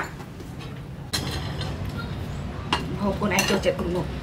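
Metal spoons and a ladle clinking a few times against ceramic bowls and plates as food is served. A person speaks briefly about three seconds in.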